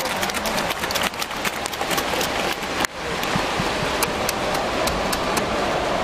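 Stadium crowd noise from a large football crowd: a steady rush of many voices, with sharp claps and clicks close to the microphone, thick for the first three seconds and sparser after a brief dip.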